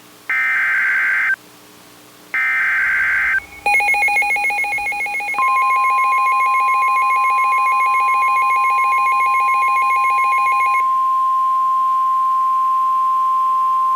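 Emergency Alert System SAME header: harsh one-second bursts of digital data screech, repeated with about a second's gap between them. Then the alert tones begin: a buzzy, pulsing lower tone, joined about two seconds later by the steady 1050 Hz NOAA Weather Radio warning tone. The lower tone cuts off about eleven seconds in, leaving the steady tone alone.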